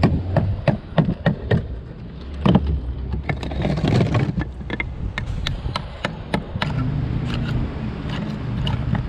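Sharp knocks of a tool striking conch shell, two or three a second, as the shell is knocked open to get the meat out. A low engine hum comes in about two-thirds of the way through.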